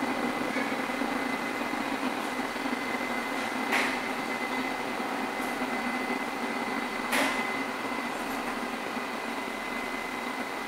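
R188 subway car standing at the platform with its doors open, its air conditioning and onboard equipment humming steadily with a faint high tone. Two brief clicks come about four and seven seconds in.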